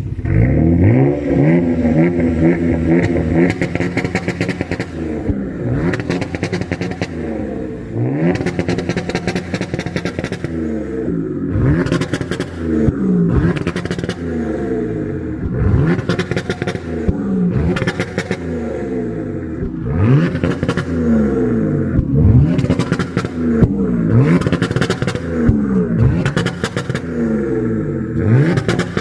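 Car engine and muffler revving up again and again, its pitch climbing in sweeps about every two seconds, with crackling from the exhaust.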